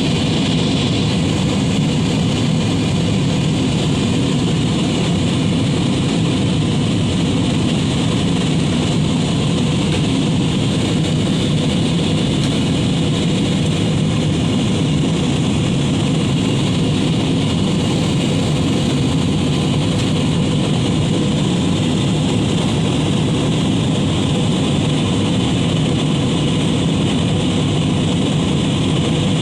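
Steady jet airliner cabin noise: the even, unbroken rush of the engines and airflow heard from inside the passenger cabin, deepest in the low range and unchanging throughout.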